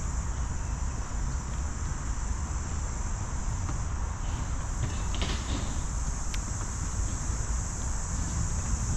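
Steady high insect chirring over a low rumble, with a few faint clicks about halfway through.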